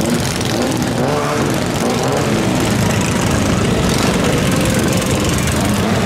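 Small gasoline engines of several miniature parade cars running together as they circle past.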